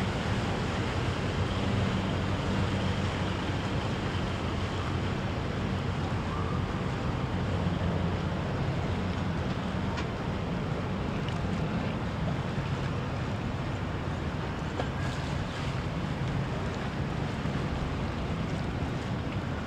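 Motorboat engines running steadily, mixed with the wash of waves and wind noise on the microphone.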